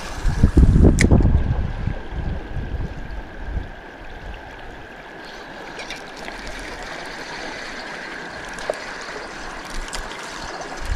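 Creek water flowing and trickling steadily. A loud low rumble fills the first few seconds, with a sharp click about a second in.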